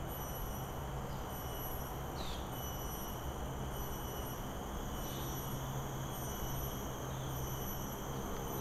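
Steady high-pitched insect chorus from the surrounding trees and grass, with a few short falling chirps over it and a steady low rumble underneath.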